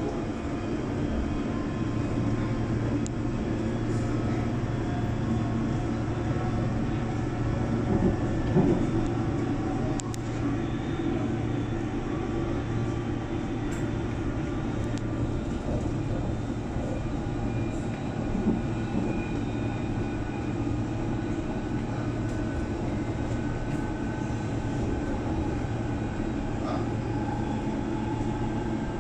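London Underground District line train running between stations, heard from inside the carriage: a steady rumble and low hum with a faint thin whine above it. A few brief clicks and knocks come through, and there is a louder knock about eight seconds in.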